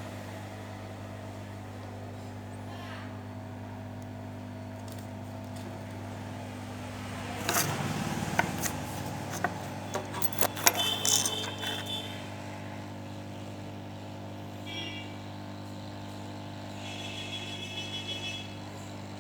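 Hot-air rework blower running with a steady hum while it heats the old battery-connector pins to melt their solder. Louder clattering and handling clicks come in the middle.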